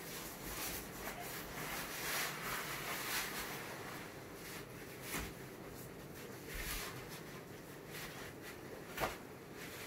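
Rustling of a blue disposable non-woven surgical gown as it is shaken open and pulled on, with one brief click near the end.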